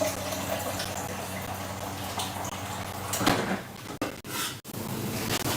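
Water running into a container, a steady splashing hiss, with a louder clatter about three seconds in.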